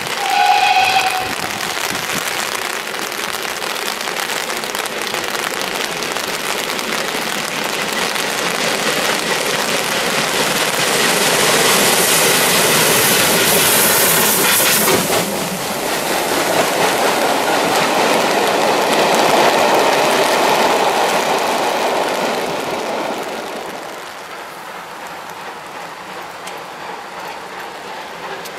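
Steam train hauled by two GWR 0-6-0 pannier tank locomotives passing under a bridge in heavy rain: a short steam-whistle blast about half a second in, then the locomotives' exhaust and steam grow louder and peak as they pass beneath about 12 to 15 seconds in, followed by the coaches rolling by. About 24 seconds in the train sound ends abruptly, leaving the hiss of rain.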